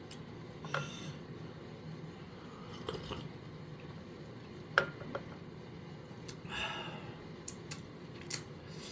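Scattered light clicks, taps and short scrapes of objects being handled, the sharpest click about five seconds in, over a faint low hum.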